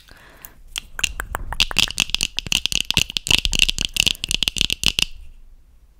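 Long fingernails tapping rapidly on plastic eyeglass frames close to the microphone: a dense run of bright clicks, many a second, that starts after a short rustle about a second in and stops about five seconds in.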